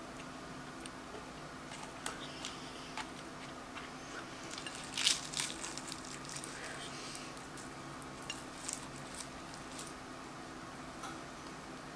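Flaky puff pastry crackling as it is torn apart with a fork and fingers on a ceramic plate, with small clicks of the fork against the plate. The sounds come in scattered crackles, most densely about five seconds in.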